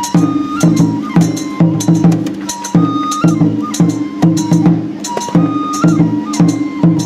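Japanese folk ritual dance music: a high, piping melody of held notes over regular drum strikes about twice a second, with sharp bright hits on the beats.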